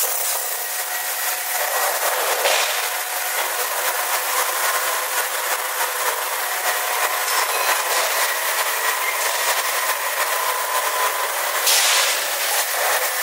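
Steady factory machinery noise, a hiss-like rush with faint high whining tones running through it.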